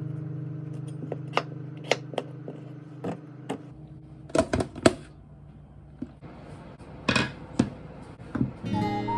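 Scattered light clicks and taps of kitchen utensils and containers, with a few sharper knocks about halfway through and a short scrape about seven seconds in. A held guitar chord fades out over the first few seconds.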